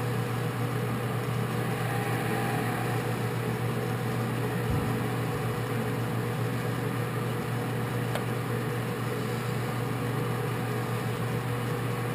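American Machine Tool Turnmaster 13 x 40 engine lathe running steadily under its 5 hp three-phase motor, spindle turning at about 200 RPM with the power cross feed engaged: a constant motor and gear hum with a faint steady whine.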